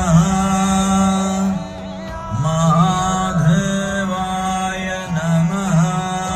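Devotional music: a voice chanting a mantra in long, ornamented glides over a steady held drone.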